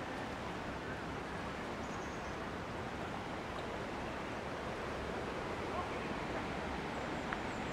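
Steady rushing outdoor noise, even and unbroken, with a few faint high chirps about two seconds in and again near the end.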